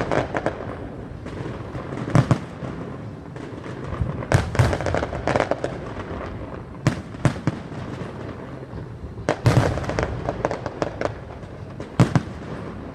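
Aerial firework shells bursting: a sharp boom every second or two, each followed by crackling and a trailing rumble.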